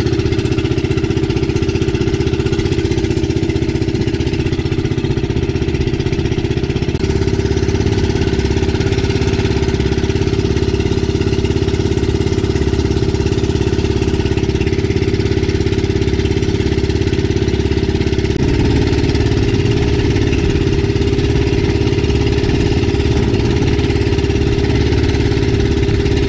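Small engine of an outrigger banca running steadily under way, with a hiss of water and wind over it. Its pitch shifts slightly about seven seconds in and again about eighteen seconds in, as the throttle is changed.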